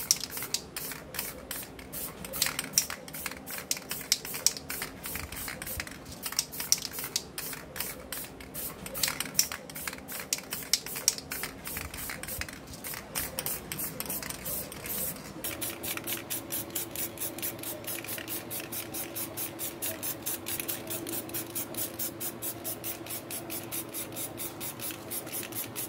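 Rhythmic back-and-forth scraping strokes of hand abrasion on a rusty bicycle part, irregular at first and then an even pace of about three strokes a second from about halfway. A steady low hum comes in at the same point.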